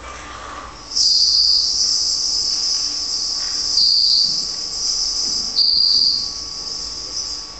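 Shrill, high-pitched sustained tone with a hiss, starting suddenly about a second in and stepping down in pitch twice, near four and near five and a half seconds.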